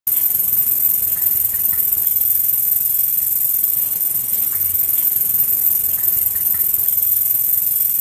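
Katydid (long-horned grasshopper) stridulating, rubbing its wings together: a thin, steady, high-pitched hiss, turned up in loudness.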